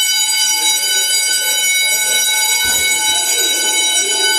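Building fire alarm sounding continuously: one steady, piercing high-pitched tone that does not pulse or break. There is a dull knock about two and a half seconds in.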